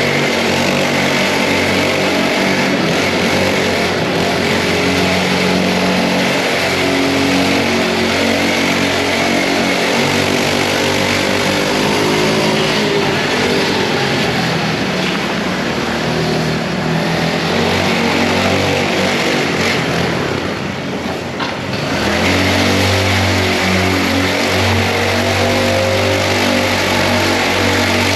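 Mini bike's small engine running under way, its note rising and falling with the throttle. About twenty seconds in it eases off briefly, then picks up again.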